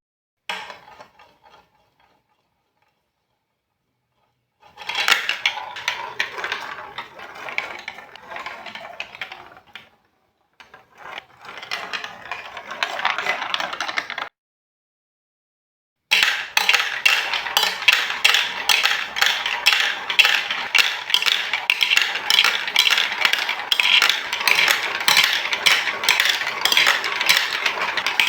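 Marbles rolling and clattering down a plastic Lego Duplo block marble run: short bursts of rattling and clicking broken by silent gaps, then from about halfway a dense, continuous rapid clatter of many marbles at once.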